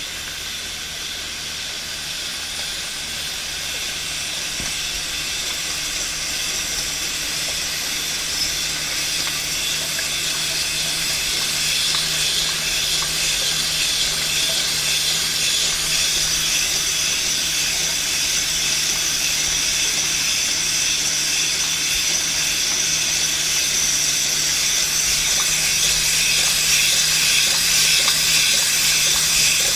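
H&K filling machine running at 110 bottles per minute: a steady hissing rush of liquid and gas through the filling valves over a low machine hum, growing gradually louder.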